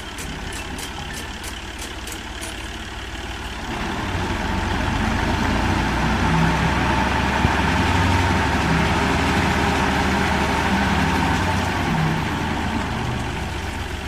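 New Holland tractor engine running steadily while it drives a tubewell pump. It grows louder about four seconds in and eases a little near the end. A fast, regular light ticking sounds over the first couple of seconds.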